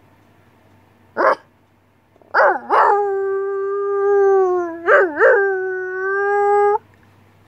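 A person's imitation of a wolf howl, the 'exciting' howl with barks inside it: one short bark about a second in, two quick barks leading into a long held howl, which dips in pitch and is broken by two more barks in the middle before it stops near the end.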